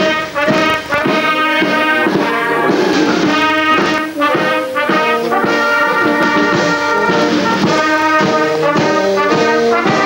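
Brass band playing a tune, the whole band sounding loud and unbroken.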